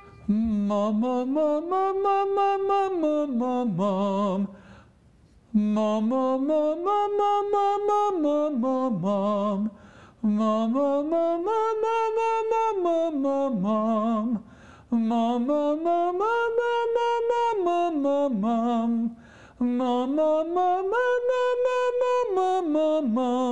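A man singing a vocal exercise through his break: five phrases, each gliding up from a low note to a held high note with vibrato and back down again, each peak a little higher than the last.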